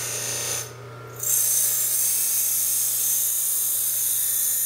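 Stainless steel knife blade pressed against a spinning stack of Scotch-Brite abrasive wheels on an electric motor: a steady high hiss of abrasive rubbing over the motor's hum. The hiss breaks off for half a second about a second in as the blade is lifted, then resumes. The wheel is rounding over and smoothing the blade's sharp machining edges.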